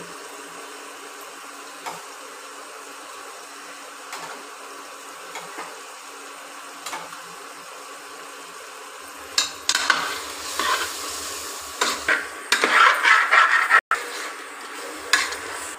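Faint steady sizzling of a spiced vegetable mixture in a steel pressure cooker on the heat. About nine seconds in, a spatula starts stirring it, scraping and clinking against the pot in repeated bursts.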